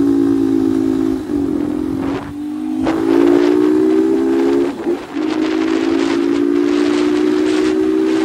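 MH Drift 150 motorcycle engine running hard under way with a steady droning tone. It drops briefly three times, about a second in, just after two seconds and near five seconds, each time picking up again, and it climbs a little in pitch in between.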